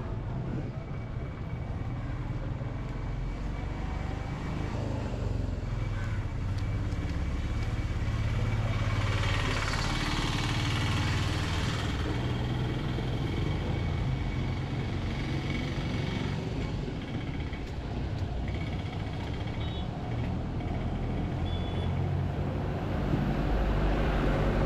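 A motor vehicle passing on the road, loudest from about nine to twelve seconds in, over a steady low rumble.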